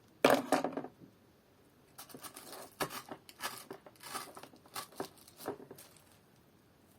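Spruce sprigs and tissue paper rustling and crinkling as they are handled and pushed into a foam-filled planter: a sharp crackly burst about a third of a second in, then a string of short rustles.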